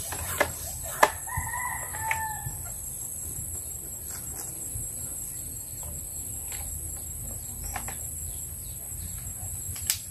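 A rooster crows once, starting about a second in and lasting over a second. Before the crow there are two sharp clicks, and a steady high-pitched hum runs underneath.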